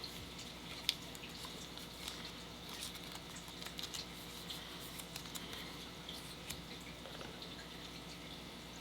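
Faint plastic rustling and small scattered clicks of a trading card being slid into a soft plastic card sleeve, with one sharper tick about a second in, over a steady low hum.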